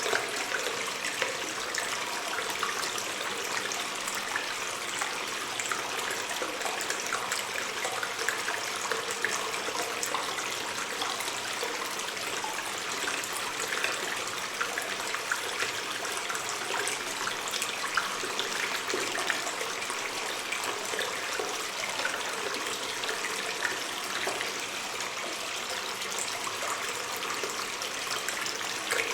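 Water stream running and trickling in a cave, a steady rush with many small drips and splashes.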